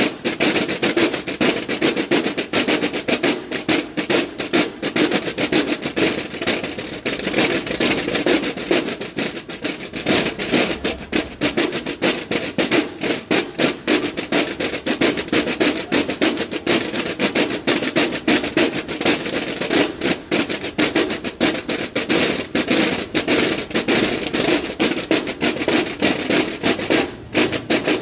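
Massed marching snare drums of a Mexican banda de guerra playing a fast, loud cadence full of rolls, many drums struck together.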